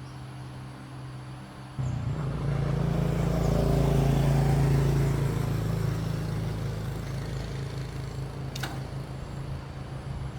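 A motor starts suddenly about two seconds in and runs at a steady pitch, over a lower hum already present; a single sharp click near the end.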